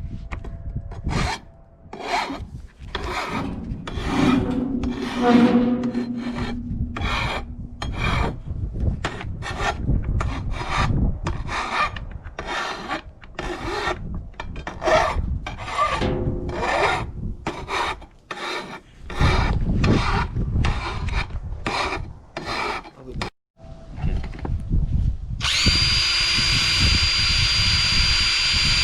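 Hand file rasping along the cut edge of an aluminum angle bar in repeated strokes, about one and a half a second, dulling the sharp edge. Near the end the strokes give way to a steady mechanical whine with a high tone.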